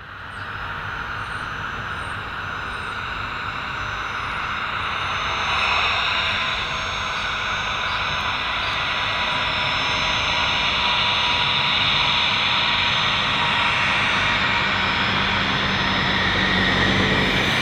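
Bombardier Learjet 60 taxiing, its two Pratt & Whitney Canada PW305A turbofans at low power: a steady jet whine with several high tones over a rushing hiss, slowly growing louder as the jet comes closer.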